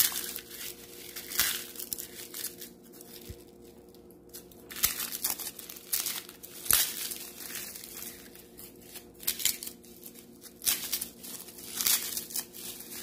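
Dry, papery outer skin being peeled and rubbed off whole heads of garlic by hand, in irregular short rustles and tearing sounds.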